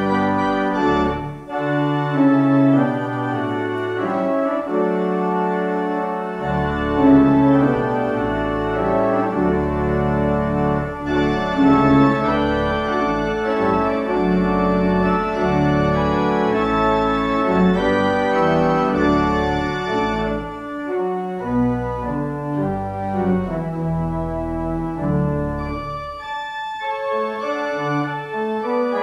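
Church organ played in sustained full chords, with a low pedal bass that drops out for a few seconds near the start and briefly again later.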